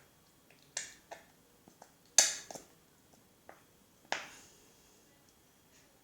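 Plastic glue bottle being knocked to shake thick white glue out: about five sharp, irregular knocks, the loudest just after two seconds in.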